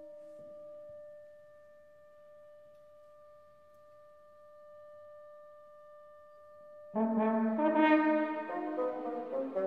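A single soft note held steady for about seven seconds. Then the orchestra comes in loudly with brass and French horn playing a full, shifting chord.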